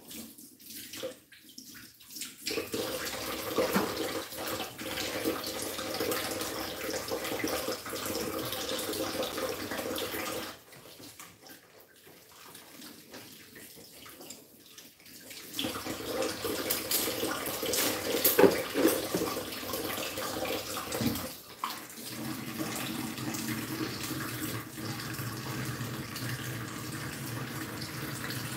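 Kitchen tap running into a sink while dishes are washed by hand under it. The flow stops for about five seconds midway, then runs again, with a few sharp knocks of dishes in the sink soon after.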